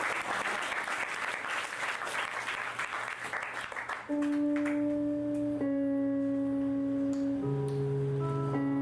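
Audience applause with clapping that fades out over the first four seconds. Then steady, organ-like sustained notes from an electric instrument come in abruptly, each held pitch shifting to a new chord every second or two.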